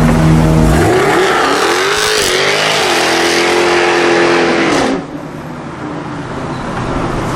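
Jaguar F-Type R's supercharged 5.0-litre V8 revving hard. The engine note climbs steeply, is held at high revs for several seconds under a rushing hiss, then cuts off abruptly about five seconds in, leaving a lower rumble.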